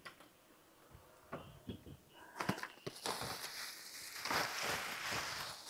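Rummaging sounds while searching for a toy block: a few faint knocks and clicks, then rustling from about three seconds in.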